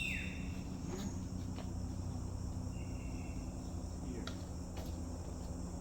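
Steady high-pitched chorus of insects, with a brief falling whistle at the start, a short steady tone about three seconds in and a few faint clicks.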